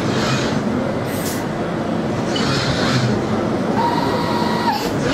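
Short hisses of compressed air from a Piab vacuum ejector, several times over a few seconds, as the robot's suction cup picks up and releases items. They sit over a loud, steady, rumbling background din. A steady tone sounds for about a second near the end.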